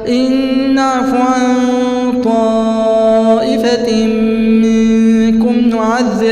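A man reciting the Quran in a slow, melodic tajweed style, unaccompanied, drawing out long wavering notes with gliding ornaments.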